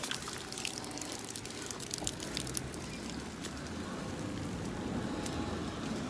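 Rain falling: an even hiss with scattered sharp ticks of drops.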